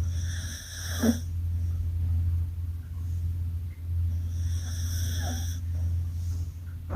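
Pet dog snoring in its sleep: two long snoring breaths about four seconds apart, each with a high hiss, over a steady low hum.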